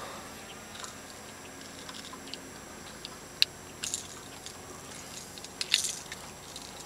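Small clicks and scrapes of pliers working a hook out of a bass's mouth, with one sharp click about three and a half seconds in and a few quick clusters near four and six seconds.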